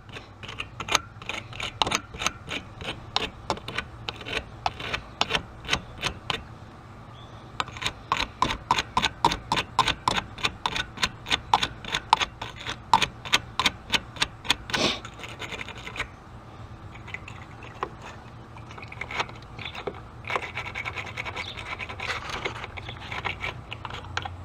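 Hand tool scraping crusty corrosion off a car battery terminal in quick repeated strokes, about three or four a second, pausing briefly twice, then softer, irregular scratching near the end.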